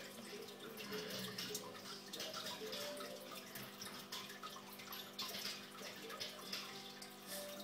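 Water trickling and splashing steadily in a home fish tank, full of small drips and bubbles, over a steady low motor hum.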